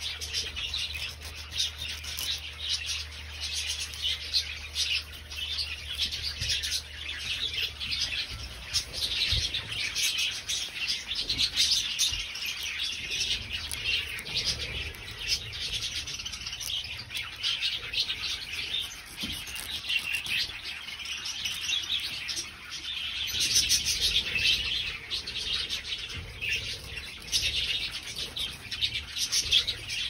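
Budgerigars chirping over and over in short, high calls, scattered through the whole stretch.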